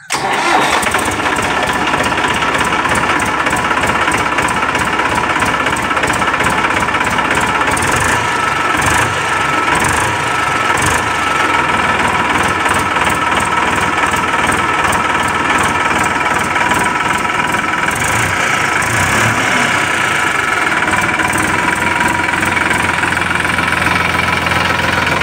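Massey Ferguson 7250 DI tractor's three-cylinder diesel engine catching and starting right at the beginning, then running steadily at idle.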